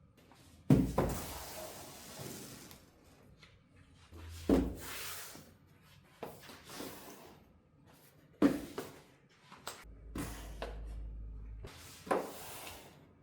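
Four knocks of hard objects being set down or handled, about every four seconds, each followed by a rustle of handling.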